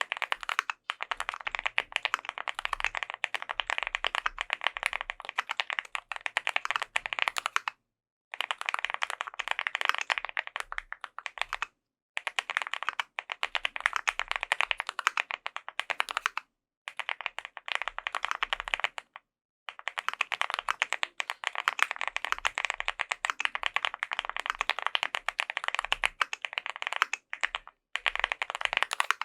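Fast typing on a custom mechanical keyboard with lubed Gateron Mizu Mink switches, PBT keycaps and an aluminium plate: dense runs of keystrokes broken by a few short pauses.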